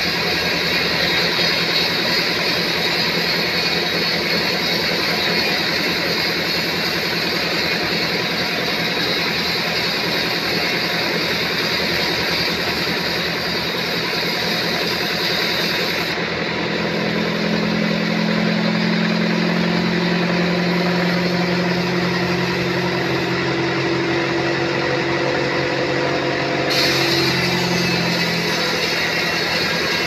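Sawmill saw running and cutting through a teak beam: a steady mechanical drone with blade noise. About halfway through the sound shifts to a lower hum with steady tones, then returns near the end.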